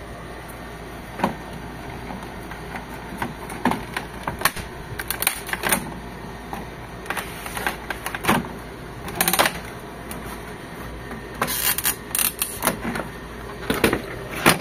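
Irregular plastic clicks, snaps and knocks in scattered clusters as the HP Officejet 7612 printer's plastic left side cover is worked free of its clips, over a steady low hum.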